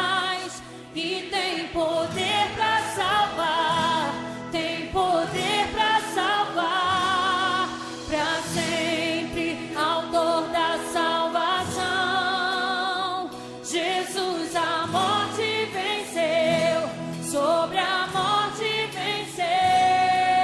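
Background music: a song with singing voices, in the style of Christian or gospel music.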